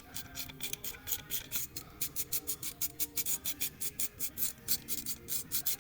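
Hand ratchet wrench clicking in quick, even back-and-forth strokes, about four to five a second, working a bolt loose on the engine.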